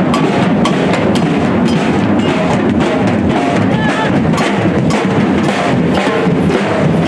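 Street drum band of snare drums, bass drums and metal-shelled marching drums played with sticks, beating a loud steady rhythm with accents about twice a second.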